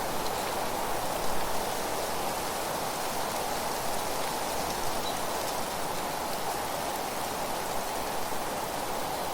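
Steady, even rushing noise of a nature ambience, a continuous hiss with no distinct birdsong or single events standing out.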